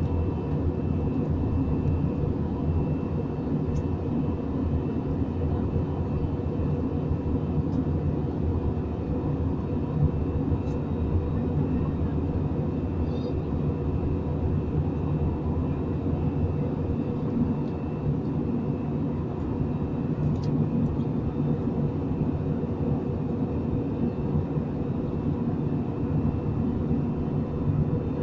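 Steady drone of an airliner's engines and rushing air inside the passenger cabin in flight, with a constant low hum.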